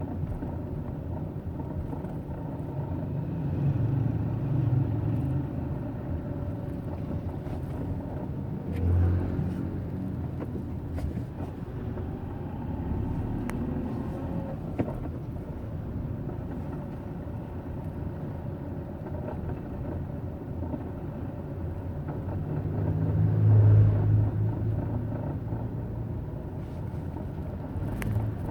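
Hyundai Eon's three-cylinder engine running at low rpm with a steady low rumble that swells louder three times. This is the low-rpm running in which the owner reports a grinding sound.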